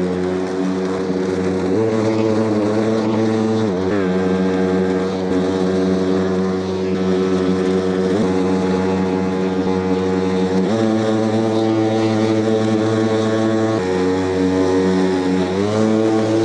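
Milwaukee battery lawnmower's blade motor running under load while mulching longer grass, a steady hum that shifts in pitch several times as the load-sensing boost kicks in and drops back.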